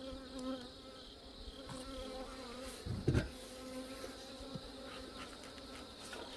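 A colony of honeybees buzzing in a steady hum around the opened hive, with a single thump about three seconds in.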